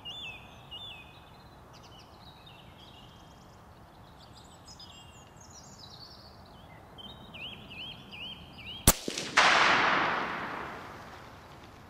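Birds singing with short repeated whistled notes, then a single rifle shot about nine seconds in from a Blaser R93 in .243: a sharp crack followed by a loud report that dies away over about two seconds.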